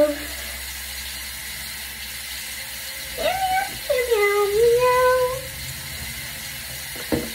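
A girl's wordless vocal sounds: a few sliding notes that rise and fall, from about three to five and a half seconds in, over a steady faint hiss.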